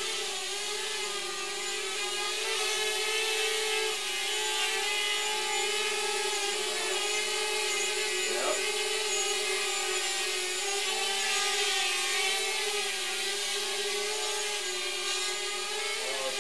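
Mini FPV racing quadcopter (QAV250 frame, four brushless motors on 5-inch two-blade props) flying indoors: a steady buzzing whine whose pitch wavers as the throttle changes, with one quick sweep up and back down in pitch about halfway through.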